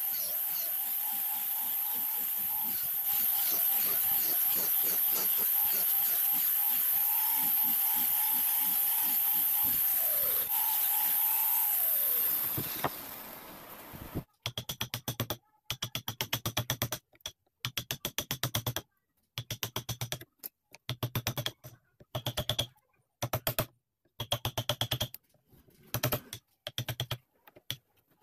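Angle grinder fitted with a sanding pad running steadily as it sands a wooden stock, its pitch dipping briefly under load, then winding down and stopping about twelve seconds in. After that come short bursts of a rapid, choppy pulsing sound with pauses between them.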